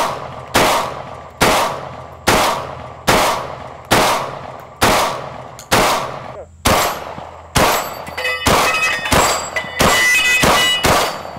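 .410 shotgun shells fired in a steady semi-automatic string from an AR-15 with a .410 upper, about one shot a second. The shots come faster over the last few seconds, and steel plate targets ring after them.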